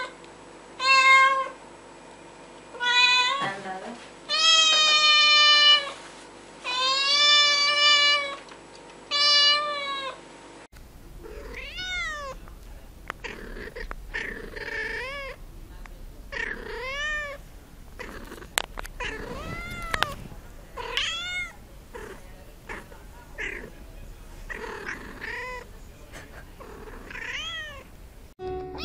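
Cats meowing. A kitten gives five long, loud meows, then, after a cut, another cat makes a quieter run of short meows, about one a second, each rising and falling in pitch.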